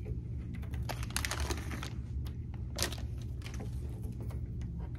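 Faint scattered clicks and crinkles of a plastic packet and soft rubber charms being handled and set down, over a low steady hum.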